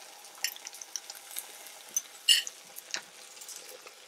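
Beaten eggs and ham sizzling softly in a hot buttered frying pan, with a few light clicks and taps from the fork, bowl and pan, the sharpest a little past halfway.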